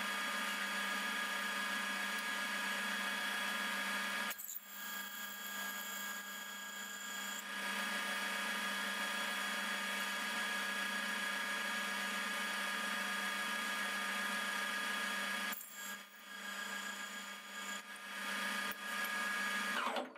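Metal lathe running with a steady whine as a drill is fed into the workpiece from the tailstock. The sound dips briefly twice, then the whine falls in pitch and stops near the end as the lathe is switched off.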